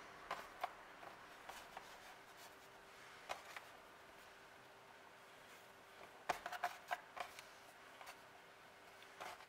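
Faint soft taps and rubbing of hands braiding ropes of shortcrust dough on a wooden pastry board, with a cluster of taps about six to seven seconds in. A faint steady hum sits underneath and stops near the end.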